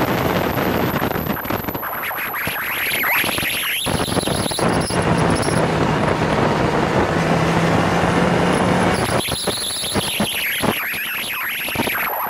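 Motorcycle engine heard on board at speed, with heavy wind rushing over the microphone. The engine note rises in two sweeps, holding steadier in between as the bike accelerates.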